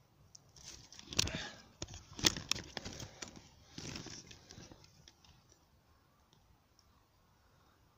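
Rustling and scraping in dry leaf litter with camera handling noise, broken by two sharp clicks about a second apart, then a shorter rustle about four seconds in.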